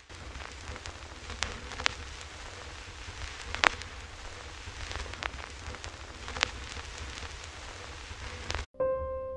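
Outdoor rain, heard as a steady hiss with scattered sharp ticks of drops and a low rumble of wind on the microphone. It cuts off suddenly near the end, and a piano note starts ringing.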